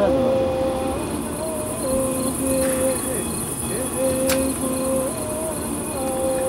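Crickets chirring in a continuous high-pitched buzz, which sets in about a second in. Under it runs a mid-pitched hum that wavers and breaks off every second or so, with a few faint clicks.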